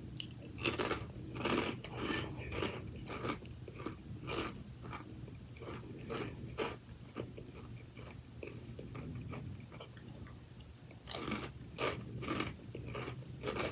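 Crunchy shrimp chips being chewed close to the microphone: irregular short crunches, thinning out in the middle and coming thick again near the end.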